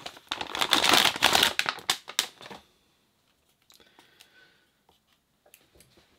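Plastic anti-static bag crinkling loudly as a graphics card is slid out of it, for about two and a half seconds, then stopping; only a few faint handling clicks follow.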